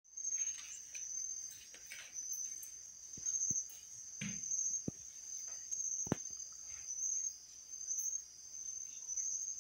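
Crickets chirping in a steady, high-pitched trill, with a few short knocks in the middle.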